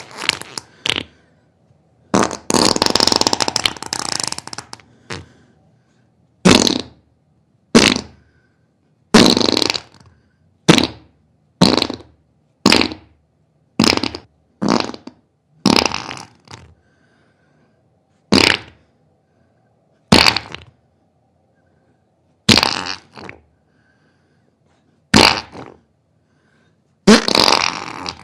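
A run of separate farts, about sixteen, each a sudden blast that dies away with silence between; most are short, and one near the start is drawn out for about three seconds.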